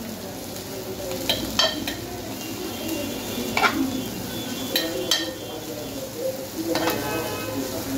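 Sliced vegetables sizzling in hot oil in a metal pot, stirred with a metal spoon that scrapes and knocks against the pot several times.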